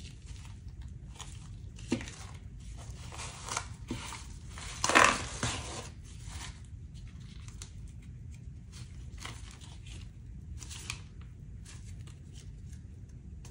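Gloved hands handling the plastic and fabric layers of a shot armor plate on a wooden table: scattered rustling, crinkling and light knocks as sheets are picked up and set down, loudest about five seconds in.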